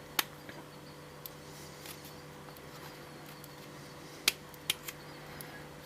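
Small sharp clicks of a plug follower being pushed through a PD lock cylinder to slide the plug out of its housing: one click just after the start and three close together about four seconds in, over a faint steady hum.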